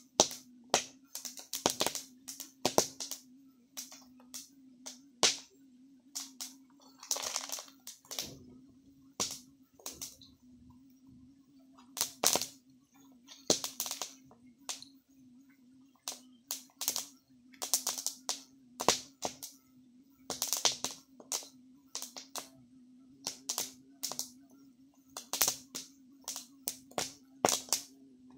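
Open wood fire roasting corn cobs, crackling with many sharp, irregular pops and snaps.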